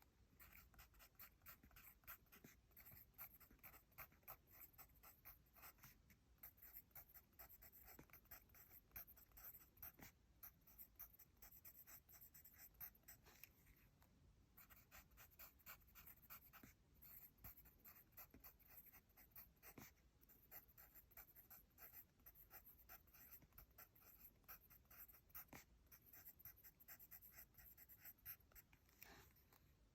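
Faint pencil writing on paper: many short scratchy strokes in quick succession, with an occasional sharper tick as the lead touches down.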